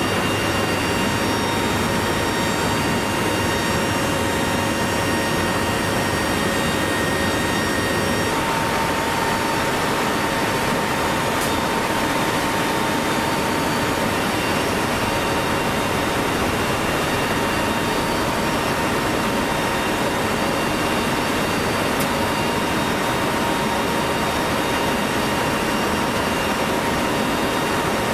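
Steady drone of a Lockheed C-130 Hercules's four turboprop engines heard from inside the cargo hold, mixed with a rush of air through the open doors and ramp. The engine tones shift slightly about eight seconds in.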